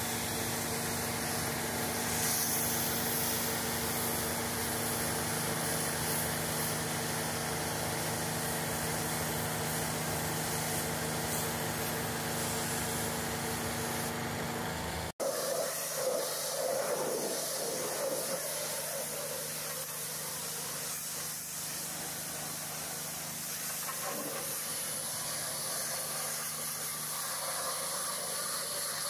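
Hot-water pressure washer spraying a truck's wheels and body: a steady hiss of high-pressure spray. Under it, an engine runs steadily in the first half and cuts off abruptly about halfway.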